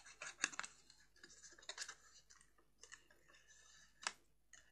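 Cardstock being handled and pressed flat along its folds on a desk: faint, irregular light taps and paper scrapes, with a slightly louder tap about four seconds in.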